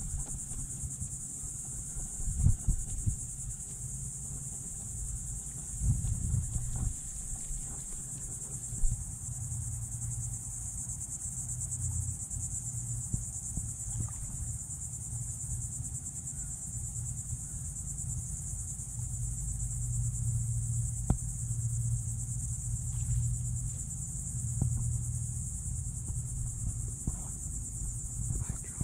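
A steady, high-pitched insect chorus drones without a break, over a low steady rumble. A few brief soft knocks come in the first third.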